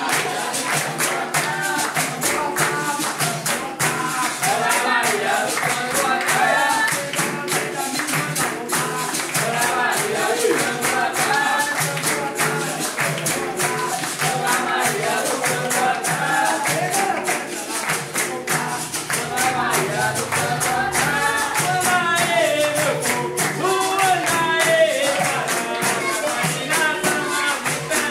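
Capoeira roda music: voices singing over a pandeiro and steady percussion keeping an even rhythm.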